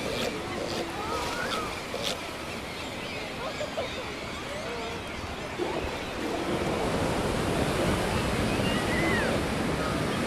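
Ocean waves washing steadily, with many short high calls or cries scattered over the wash. The wash swells a little about two-thirds of the way through.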